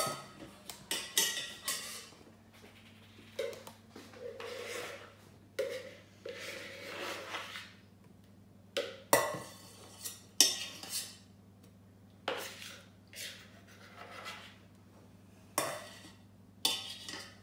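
A metal utensil scraping butter out of a mixing bowl and knocking against a stainless steel saucepan, in irregular scrapes with several sharp clinks.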